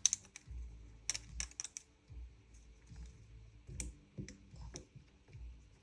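Small trigger-housing parts of a gas-blowback airsoft gun being handled during disassembly: a scatter of light, sharp clicks and taps, with bunches a little after one second and again near four seconds.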